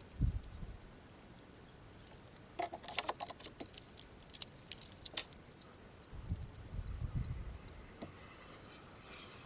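Light metallic clinking and jingling of small hardware and tools being handled, in a cluster of sharp clicks in the middle, with a dull thump near the start and a few low knocks a little later.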